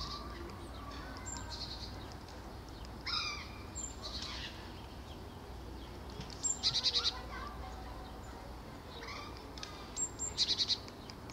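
Small songbirds calling: short, high trills of rapid repeated notes three times, with a few brief sliding chirps between them, over a steady low rumble.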